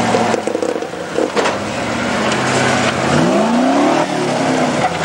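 Engine of a Range Rover-based off-road trial car running under load as it crawls over rocks, its revs rising sharply about three seconds in, with a couple of knocks early on.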